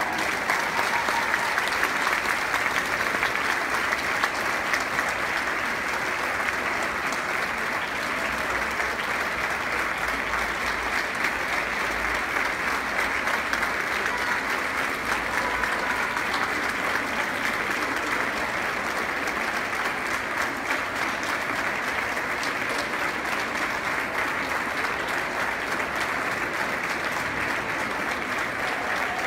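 Audience applauding steadily and at length, a dense, even patter of many hands clapping.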